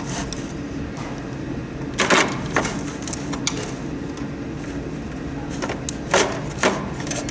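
Scattered sharp clicks and knocks of a humidifier's plastic parts being handled during disassembly, a pair about two seconds in and another pair around six seconds, over a steady low background noise.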